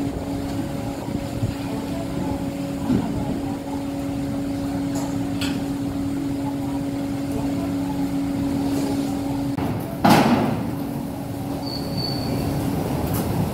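Steady machinery hum of a berthed car ferry, with a held low tone that stops near the end, then one short, loud, noisy burst about ten seconds in as cars drive aboard.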